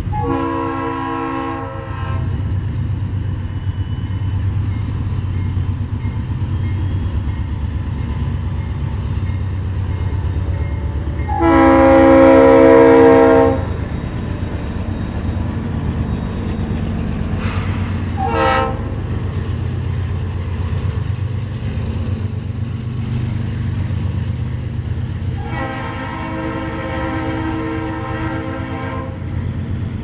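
Norfolk Southern high-hood GP diesel locomotive blowing its multi-note horn in the grade-crossing pattern: a long blast, a second long and loudest blast about 11 seconds in, a short toot about 18 seconds in, and a final long blast near the end. Under the horn, the steady rumble of the diesel engine and the train's wheels as it passes close by.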